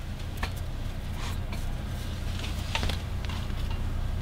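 Soft rustles and a few light clicks of fabric being handled while a sleeve is pinned into place, over a steady low hum.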